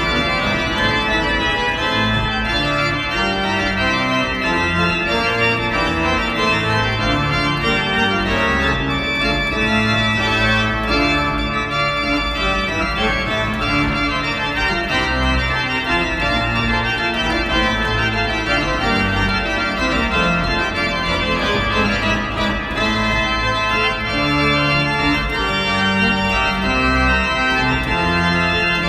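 Organ music: slow, sustained chords over a bass line that moves step by step, playing steadily and without a break.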